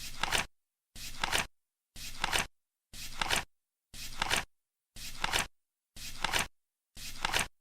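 Flip clock's number cards flipping once a second: each flip is a short rustling flutter ending in a sharper click as the card lands. There are eight flips in even rhythm, with complete silence between them.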